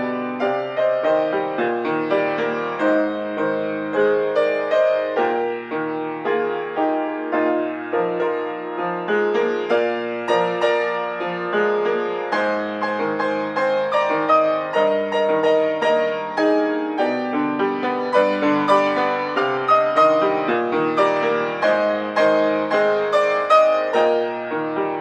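Solo piano playing a steady, busy stream of notes over a moving bass line, several notes a second without a pause.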